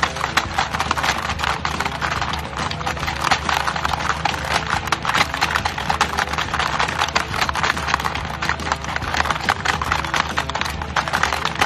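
Hungry Hungry Hippos board game clattering fast and without a break as the plastic hippo levers are hammered over and over, the hippos' jaws clacking against the board.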